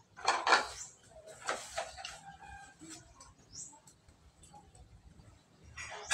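Dishes knocking and clattering as they are washed and handled by hand, with the loudest clatters about half a second in, around a second and a half in, and near the end. Birds chirp faintly in the background.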